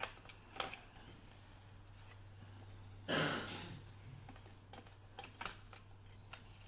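Small faint clicks and taps as a 2.5-inch SSD in its mounting caddy is handled and set into a laptop's drive bay, with one louder, brief rushing noise about three seconds in, over a steady low hum.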